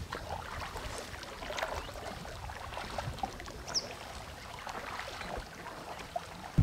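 Wooden paddle dipping into lake water beside a papyrus reed boat, with irregular small splashes, drips and lapping water.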